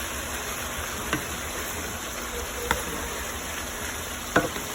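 Chicken breast pieces, onions and bell peppers sizzling steadily in a frying pan, with three short sharp clicks about a second, two and a half seconds and four and a half seconds in.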